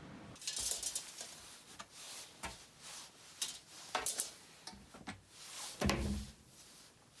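Workshop handling noises: a string of light clicks, knocks and short scrapes, with a heavier thump about six seconds in.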